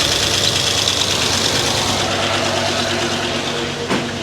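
Freshly rebuilt GM LS4 5.3-litre V8 idling steadily just after a restart, with the accessory drive belt making a high squeaking noise over the engine. A single sharp click comes near the end.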